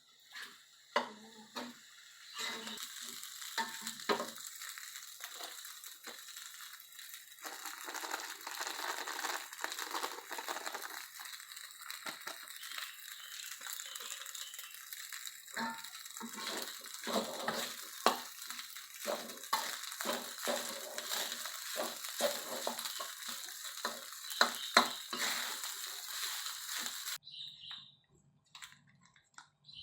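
Food sizzling in hot oil in a wok, stirred with a metal spatula that clicks and scrapes against the pan. The sizzle starts abruptly about two seconds in and cuts off suddenly near the end.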